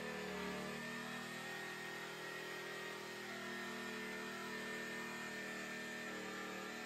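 Jigsaw running steadily, its blade cutting through a particleboard panel.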